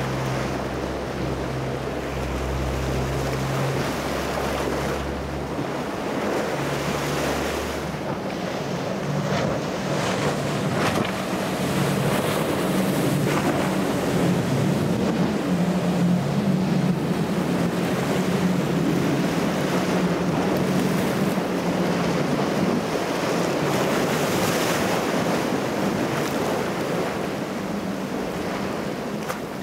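Boat engines running through rough inlet water, with waves breaking and wind buffeting the microphone. The low engine hum is steady and grows a little louder in the middle.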